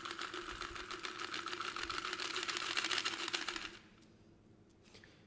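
Shaken amaretto sour being double-strained from the cocktail shaker through a fine-mesh strainer into the glass: a rapid, fine rattling and ticking that grows a little louder, then stops abruptly about four seconds in.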